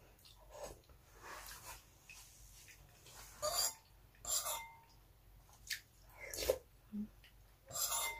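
Close-miked eating: a spoon scooping soft mung bean stew and rice from a bowl, and a person chewing, with about five short sharp clicks and smacks spaced roughly a second apart.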